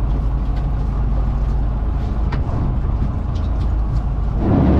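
Steady low rumble of a motor running, swelling louder just before the end.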